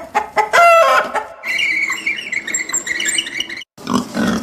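Chickens clucking: a few sharp pitched calls in the first second and a half, then steadier chattering clucks that cut off suddenly shortly before the end.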